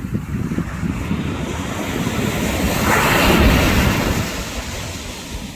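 Ocean surf breaking and washing up a beach, swelling to a peak about three seconds in and then ebbing away, over a steady low rumble of wind on the microphone.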